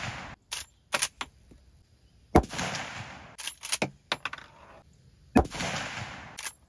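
A 30-30 Winchester lever-action rifle (Glenfield Model 30A, a Marlin 336) fired twice, about three seconds apart, each shot echoing and dying away over most of a second. Short metallic clicks of the lever being worked come before and between the shots, and the echo of an earlier shot fades out at the very start.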